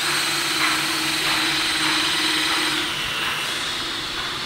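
Cordless drill with a paddle mixer running steadily in a bucket, stirring two-part epoxy floor coating; its steady hum and whine stop about three seconds in.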